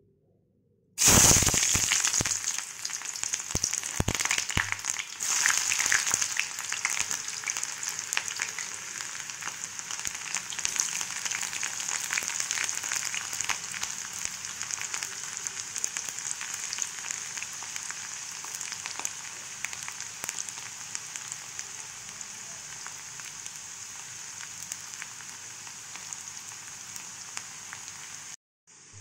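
Sliced onions frying in hot cooking oil: a sizzle that starts suddenly about a second in. It is loudest and crackling over the first few seconds, then settles into a steady hiss that slowly fades. It cuts out briefly near the end.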